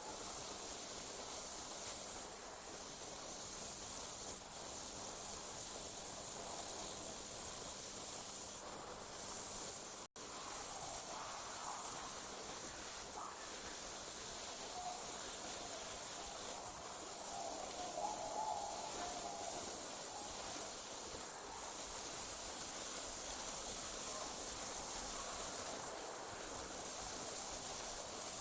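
Night crickets trilling in a steady, very high-pitched chorus, broken by short pauses every few seconds. There is a momentary dropout about ten seconds in.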